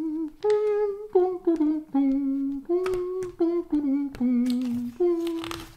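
A voice humming a short tune of about a dozen held notes that step up and down in pitch, with a paper rustle of a book page being turned near the end.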